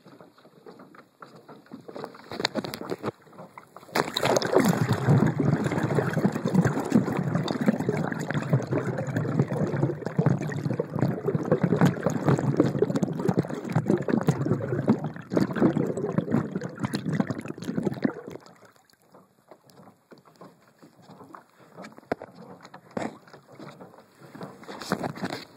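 Loud, muffled churning water noise close to the microphone, starting about four seconds in and stopping at about eighteen seconds. Quieter lapping and scattered clicks come before and after it.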